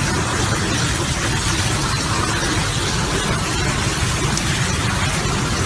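High-pressure water jet from a burst pipe, giving a steady, loud rushing hiss.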